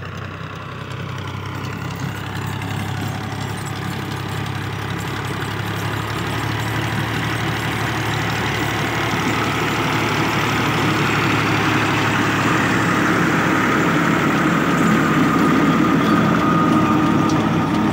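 Ghazi tractor's diesel engine running steadily under load as it pulls a rotavator through the soil, growing gradually louder as it draws near, with the rotavator's churning blades mixed in.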